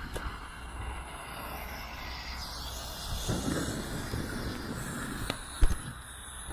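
A handful of lit mini firework fountains hissing as they spray sparks, with two sharp cracks about five and a half seconds in.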